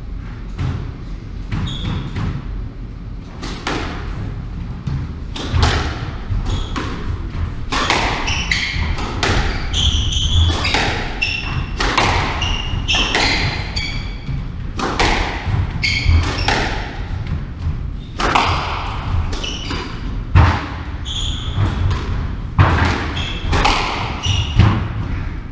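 A squash rally: the ball cracks off rackets and the court walls in quick, irregular shots, echoing in the hall, with short high squeaks of court shoes on the wooden floor between them.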